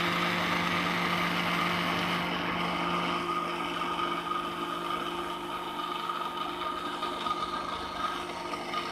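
Electric kitchen blender running steadily, blending strawberries, banana, sugar and milk into a milkshake. The motor hum holds one steady pitch and cuts off suddenly at the very end.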